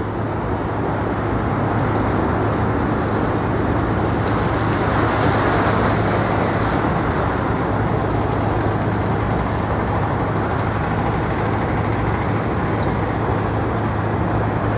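Steady city traffic noise: a continuous rush of road vehicles with a constant low hum under it. A higher hiss swells briefly about five seconds in.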